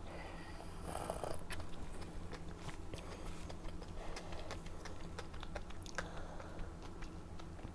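Close-miked eating sounds: chewing and biting, with many small wet mouth clicks.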